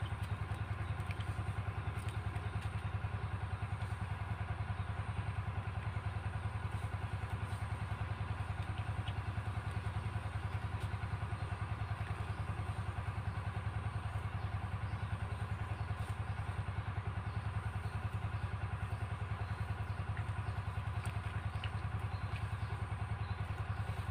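A small engine running steadily at constant speed, with an even rapid pulse and no change in pitch.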